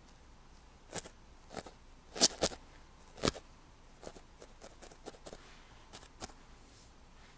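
Barbed felting needle stabbing into wool on a needle-felted cat head, a string of short pokes at an uneven pace. The loudest come about two to three seconds in, with lighter ones until near the end.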